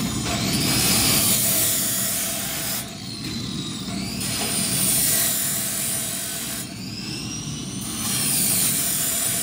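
Abrasive cut-off (chop) saw grinding through steel pipe, the disc's whine wavering in pitch as it bites. It runs through several cuts in a row, the level dipping briefly between them about three and seven seconds in.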